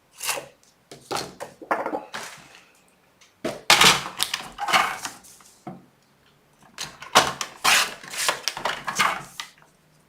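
Paper and cardstock being handled on a craft table: rustles, slides and taps, busiest about four seconds in and again from about seven to nine seconds, with short clicks between.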